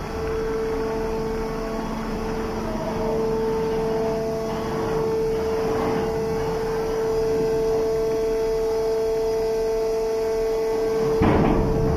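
Container ship machinery running: a steady low rumble under a constant mid-pitched whine. A brief louder rush comes near the end.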